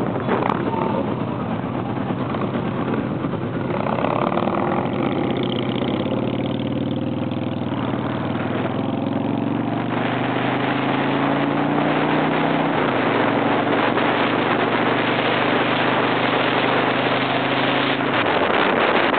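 Motorcycle engine running at highway speed with wind rushing over the microphone; the engine pitch climbs slowly as it accelerates, drops with a gear change about thirteen seconds in, and eases off again near the end.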